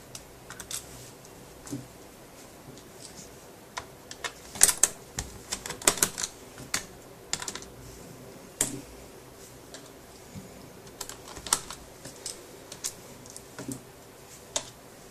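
Irregular sharp clicks and taps of a small screwdriver and screws against the plastic base of an HP Pavilion DV6 laptop as its screws are taken out, coming in clusters through the middle.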